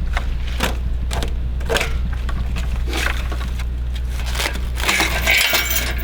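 Metal clinks, knocks and rattling from handling a log splitter's parts and packing, with a busier clatter near the end, over a steady low hum.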